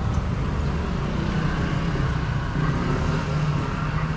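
Street traffic: a steady low engine rumble from motor vehicles, with the general hum of the street above it.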